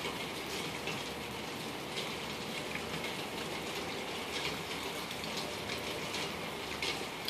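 Steady rain falling on wet ground and puddles, with scattered faint drip ticks.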